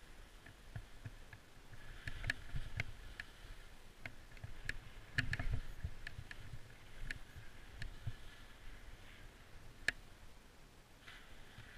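Skis scraping and chattering over chopped-up, tracked snow, with irregular sharp clicks and knocks and a low rumble underneath. The scraping swells twice, about two and five seconds in, and a single sharp click stands out near the end.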